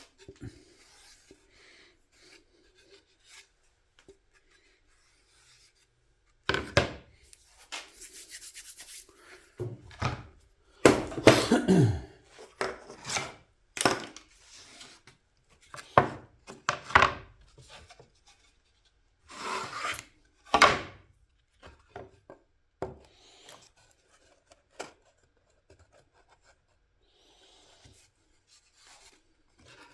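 Wooden parts being handled and worked: bursts of rubbing and scraping on wood with a few sharp knocks, busiest in the middle and quieter at the start and end.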